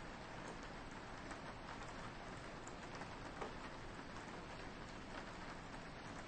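Soft, steady rain falling on a window, a continuous gentle hiss with scattered light taps of individual drops.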